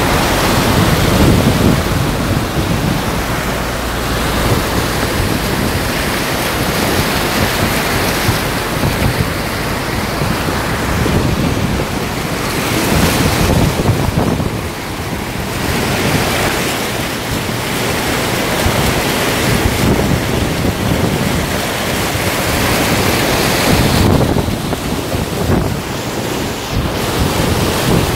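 Floodwater rushing and splashing along the side of a truck driving through it, a loud steady churn that swells and eases every few seconds, with wind buffeting the microphone.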